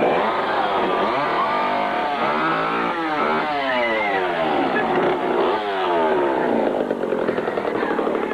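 Two-stroke chainsaw revving up and down over and over, its pitch rising and falling with each blip of the throttle. Near the end it drops to a choppy, lower-speed run.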